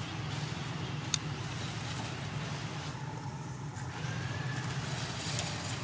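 Steady low background rumble, with a single sharp click about a second in.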